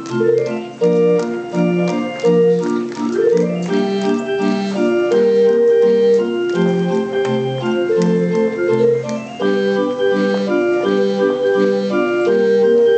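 Barrel organ playing a tune: a melody in sustained organ notes over a bass that alternates evenly with chords, without a break.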